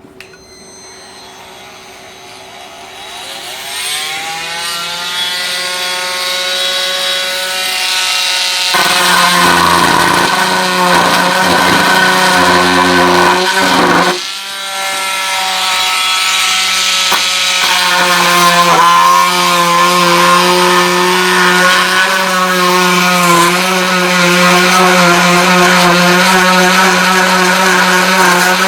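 Milwaukee M12 (C12 MT) cordless oscillating multi-tool with a wood plunge-cut blade, cutting thin plastic about 2.5 mm thick. The motor's buzz climbs in pitch as it speeds up over the first few seconds. From about nine seconds the blade is in the plastic and the sound turns loud and noisy, with a brief dip around fourteen seconds before the cutting carries on.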